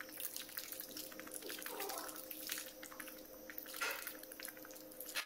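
Sugar syrup being applied to a chocolate sponge cake layer: a dense run of small wet clicks and drips as the sponge takes it up, over a faint steady hum.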